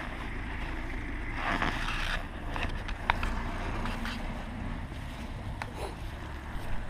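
A UAZ Patriot SUV driving along a rough track at a distance, with a steady low engine rumble that swells briefly a couple of seconds in. A couple of sharp clicks are also heard.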